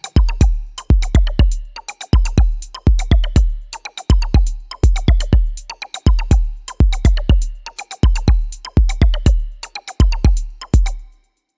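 Electronic music with a heavy, booming drum-machine kick beat, cutting out briefly near the end.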